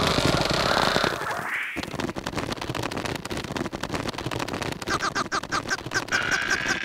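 Cartoon sound of the red larva character straining with a rising vocal whine, then dense rapid scratching as his head grinds into the dirt. Near the end he gives a quick string of short squeaky vocal calls, about five a second.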